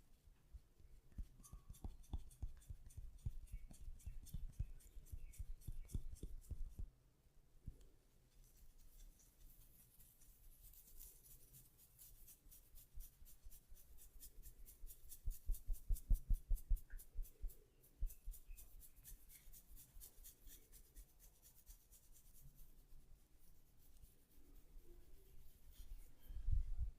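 Hands working the hair and scalp in a head massage. Close, rapid crackling and scratching of hair being rubbed and pulled, broken by quick runs of soft thuds from patting or pressing on the head.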